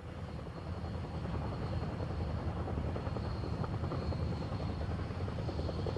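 Mil Mi-10 flying crane helicopter running on the ground while taxiing: steady rotor and engine noise with a faint high turbine whine from its twin turboshaft engines.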